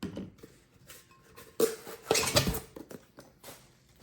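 Blender parts being handled: irregular clicks, knocks and scraping of plastic and glass components, loudest in a cluster of clatter about one and a half to two and a half seconds in.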